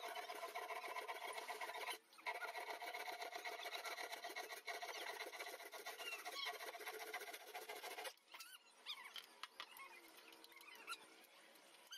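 A small handheld power tool runs steadily with a fast, even buzz as it is worked along the edge of a laminated MDF box. It drops out for a moment about two seconds in and stops about eight seconds in, after which only short high chirps are heard.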